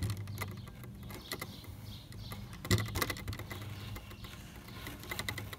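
Wooden knocks and scrapes of a plywood-and-pine cornhole board being handled and set against a second board to nest them, with one louder knock about three seconds in.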